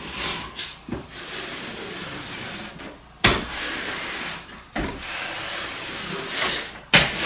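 Model railroad flex track being pushed through a curve track guide across plywood: stretches of sliding, rubbing noise broken by a few sharp clicks or knocks, about one, three, five and seven seconds in.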